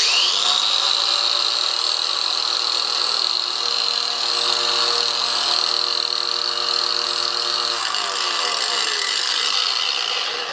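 Ryobi 18 V cordless 4½-inch angle grinder switched on with no load. It spins up to a steady high whine, runs free, then is released about eight seconds in and winds down, its pitch falling.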